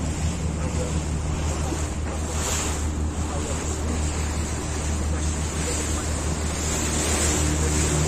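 Motorboat engine running at a steady low hum, with water rushing past the hull and wind buffeting the microphone. The sound grows a little louder near the end as the boat passes under a bridge.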